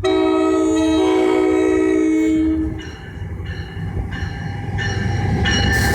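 A passing train's chord horn sounds one long blast of several notes together, cutting off after about two and a half seconds. The train's rumble carries on, with some steady high tones joining it near the end.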